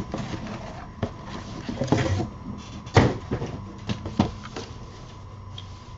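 Cardboard shipping box being opened and handled: rustling flaps and a handful of sharp knocks, the loudest about three seconds in, as a smaller cardboard box is lifted out.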